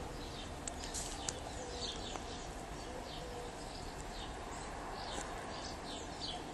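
Small birds chirping in the background, a string of short, high chirps several a second, over a steady hiss.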